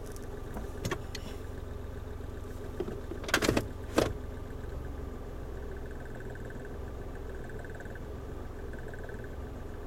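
A vehicle engine idling with a steady hum. Sharp clicks and knocks come about a second in, then a louder cluster around three and a half seconds in and a single loud click at four seconds. The noise is recorded as an abnormal sound.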